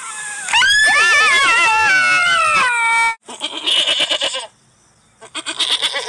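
Golden jackal howling: one long, high, wavering wail that slides in pitch. About three seconds in, it gives way to an Arabian tahr bleating: two quavering bleats with a short pause between them.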